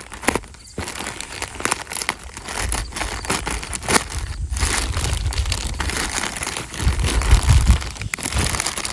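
Packing material crinkling and rustling as a mail-order shipping box is opened and unpacked by hand, with irregular crackles and a heavier stretch of handling bumps about seven seconds in.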